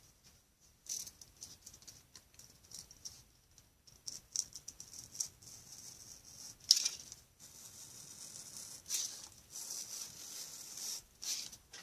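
Craft knife blade slicing through foamboard along a traced circle: a series of short, scratchy cutting strokes, the loudest a little past halfway.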